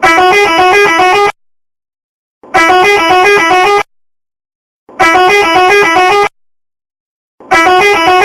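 Indonesian 'telolet' musical bus horn playing its short tune of quickly alternating notes. It sounds four times, about every two and a half seconds, with silence between blasts.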